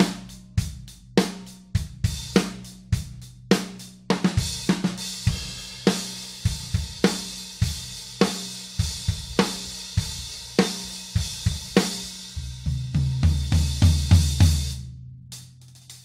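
Drum kit groove played on a 16-inch Dream hi-hat pair (16" Energy top over a 16" Bliss bottom), with kick and snare keeping an even beat. About four seconds in, a continuous cymbal wash fills in under the strokes. A run of low drum strokes builds near the end and stops about a second before it.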